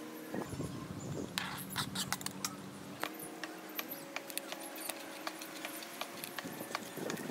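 Kitchen knife chopping a tomato on a cutting board: a run of irregular sharp taps of the blade against the board, with faint steady tones underneath.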